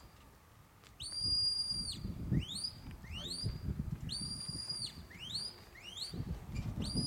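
A sheepdog handler's whistle commands to a working Border Collie: long level high whistles alternate with short upward-sweeping ones, often in quick pairs, directing the dog as it moves the sheep. A low rumble runs underneath.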